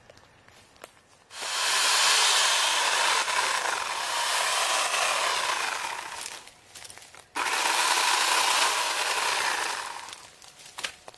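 Harbor Freight electric chainsaw running and cutting into a fallen sapling in two runs: the first starts about a second and a half in and lasts about five seconds, and after a short break the second starts abruptly and runs about two and a half seconds.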